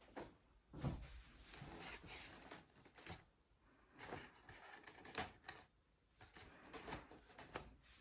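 Faint, scattered clicks and knocks of foam and plastic model-plane parts being handled and pushed into place, with a sharper knock about a second in and another around five seconds in.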